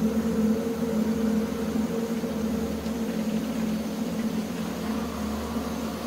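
Steady drone of a car heard from inside the cabin, a constant low hum with a soft hiss above it.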